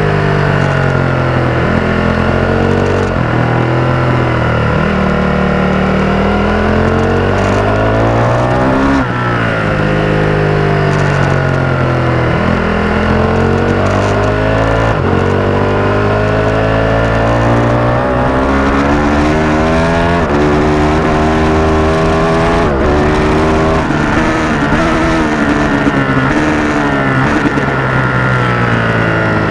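Stock Ducati 1299 Panigale's Superquadro V-twin at full track pace, heard from a camera mounted on the bike. The engine note climbs hard through each gear and drops sharply on shifts and braking, again and again.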